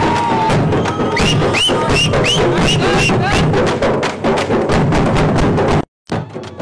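A troupe of Tamil folk parai frame drums beaten fast with sticks in a dense kuthu rhythm, with repeated short whistle-like chirps over the drumming in the first half. The sound cuts out for a moment near the end, then the drumming resumes.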